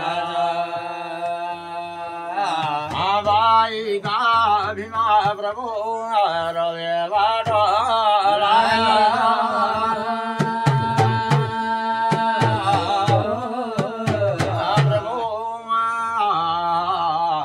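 Kumaoni jagar devotional singing, a wavering sung melody with a hand-played rope-laced drum beating under it. The drum strokes come thickest about ten to fifteen seconds in.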